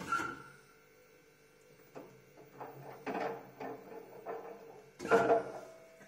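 Front-loading washing machine running an empty cleaning cycle: the drum turns with irregular clunks and knocks, the loudest right at the start and again about five seconds in, over a faint steady hum.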